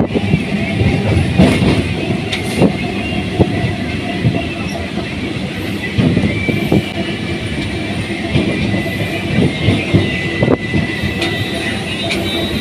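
Suburban electric local train running, with a continuous rumble and wheels knocking irregularly over rail joints; a faint steady high whine comes in about halfway through.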